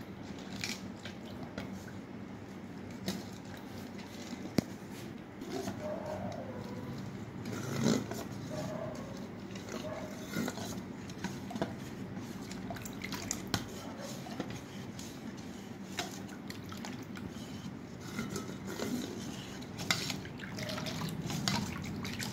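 Steel spoon stirring thick gram-flour and yogurt batter in a perforated stainless steel bowl: repeated light clicks and scrapes of spoon on steel, with a soft wet sloshing of the batter.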